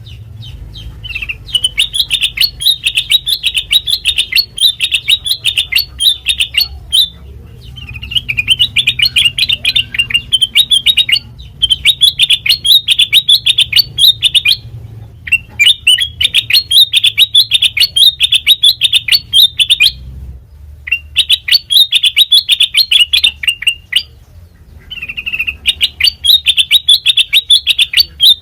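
Kutilang mas, a bulbul, singing loud phrases of fast, rapidly repeated chattering notes, about six phrases of a few seconds each with short pauses between them.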